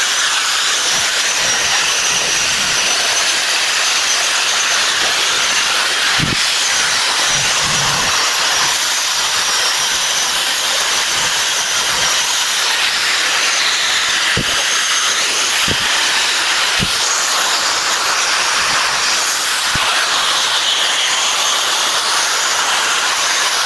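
Electric arc welding: a long, steady crackling hiss from the arc while a weld bead is run, with a few sharp pops along the way. It starts abruptly and dies away at the end as the arc is broken.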